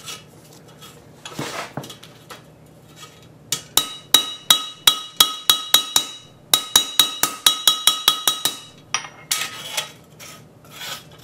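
Small hammer tapping the bent sheet-steel backing plate of a 1930 Briggs & Stratton FH engine against a flat steel plate to straighten it. Quick ringing metal strikes, about five a second, come in two runs starting a few seconds in, after some quieter handling of the plate.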